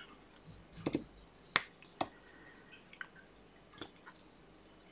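Diamond painting drill pen picking round drills out of a plastic tray and pressing them onto the adhesive canvas: a few soft, scattered clicks and taps.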